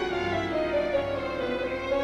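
Orchestral background music led by strings, playing a slowly falling melodic line.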